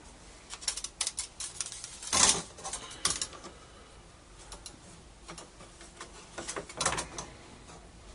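Clicks and knocks of a wooden folding ruler being handled and laid on plywood boards. A quick run of clicks fills the first three seconds, with a louder knock about two seconds in, and a few more clicks come near seven seconds.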